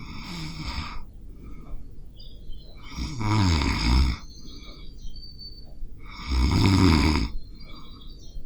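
A sleeping person snoring: three snores about three seconds apart, each lasting about a second with a low rattling buzz, the first fainter and the next two loud, with quieter breathing between.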